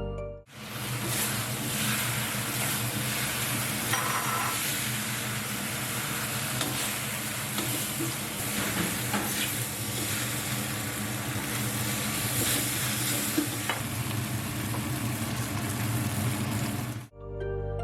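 Food sizzling in a hot wok as it is stir-fried over high heat, with a metal spatula now and then clicking and scraping against the pan. Background music cuts out about half a second in and comes back near the end.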